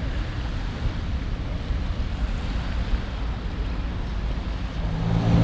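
Wind buffeting the microphone over small waves lapping on a sandy beach. Near the end a motor vehicle's engine hum comes in.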